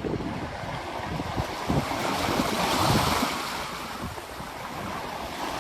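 Ocean waves breaking and washing up a beach, swelling to a peak about three seconds in, with wind buffeting the microphone.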